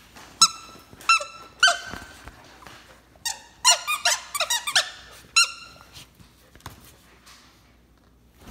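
Squeaker in a plush dog toy squeaking under a German Shepherd puppy's bites. There are three single squeaks in the first two seconds, then a quick run of squeaks a little after three seconds, and one more past five seconds.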